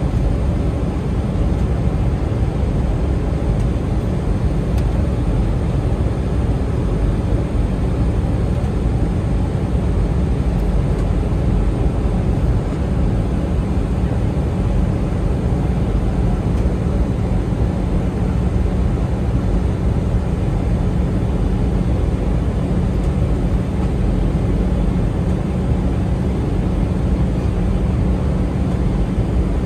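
Steady cabin noise inside an Airbus A320 airliner in flight: the rush of air along the fuselage over the low drone of the jet engines, with a faint low hum that grows a little stronger about halfway through.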